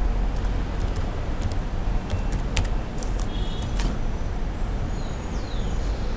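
Computer keyboard keys tapping as a word is typed, a scattering of sharp clicks over the first four seconds, over a steady hiss and low hum.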